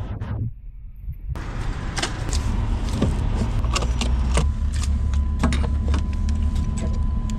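Refuelling at a gas pump: a fuel cap is unscrewed and a metal pump nozzle clicks and clatters into the vehicle's filler neck, with many short sharp clicks over a steady low rumble.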